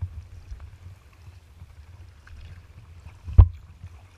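Kayak moving through choppy water with a steady low rumble of wind on the microphone. About three and a half seconds in there is a single loud thump against the kayak's hull.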